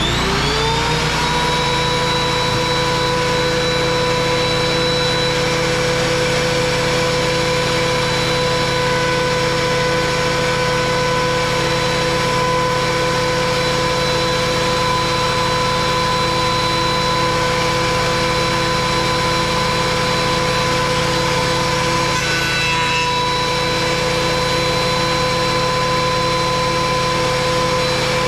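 Electric planer, mounted upside down, starting up with a rising whine and then running steadily at full speed with a high, even whine. About 22 seconds in, the sound is briefly rougher.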